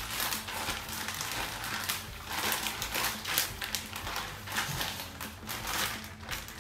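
Plastic zipper freezer bag crinkling and rustling in irregular bursts as a gloved hand works inside it, mixing seasoned scallops.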